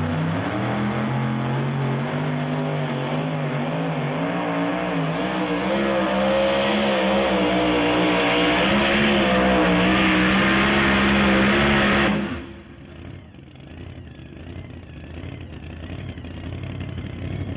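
Supercharged pulling-truck engine at full throttle under load. Its pitch climbs over the first several seconds, then holds high and wavers as it pulls. The sound cuts off suddenly about twelve seconds in, leaving much quieter background noise.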